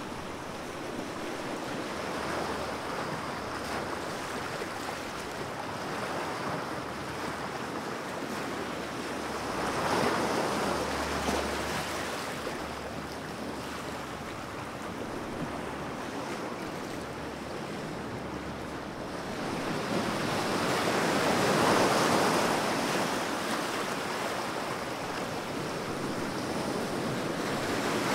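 Ocean surf: a steady wash of waves. It swells louder as bigger waves break, about ten seconds in, again just past twenty seconds, and once more near the end.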